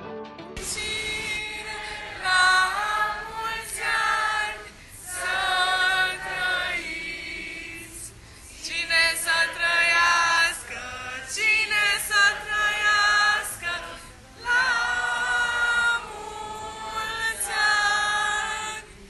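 A group of students singing a birthday song together, unaccompanied, in phrases with short pauses between them.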